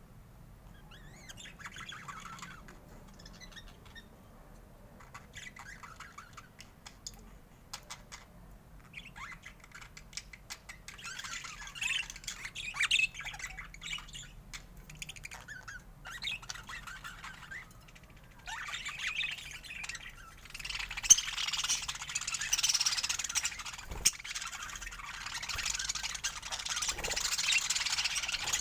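Budgerigars chattering, chirping and squawking. The chatter is scattered at first and grows busier and louder about two-thirds of the way through, with a couple of sharp clicks.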